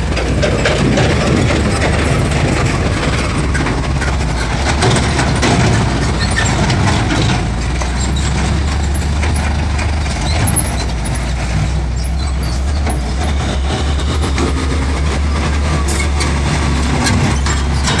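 Heavy dump trucks passing close by: a steady low engine rumble with frequent knocks and rattles.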